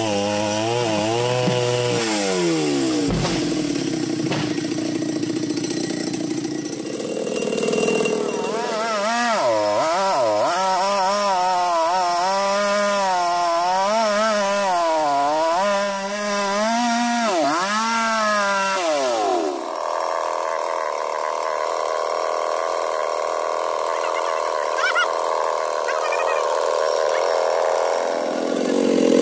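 A large two-stroke chainsaw engine being revved up and down over and over. About two-thirds of the way through it holds one steady high pitch for several seconds, then revs up again near the end.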